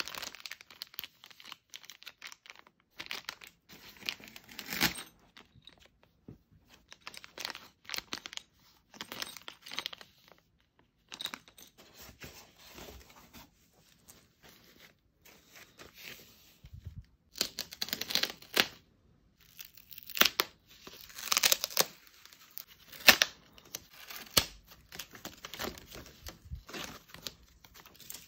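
Plastic packaging bags crinkling and rustling in irregular bursts as they are handled and pulled about, louder and busier in the second half.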